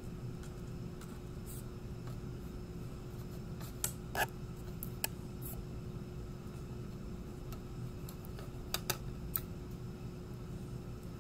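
Hookup wires being handled and gathered on a workbench: a few small clicks and taps, two close together about four seconds in and a cluster near nine seconds, over a steady background hum.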